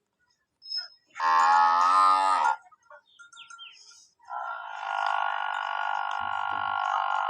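Male water buffalo bellowing: one loud call of about a second and a half, then a second, longer drawn-out call starting a little past halfway.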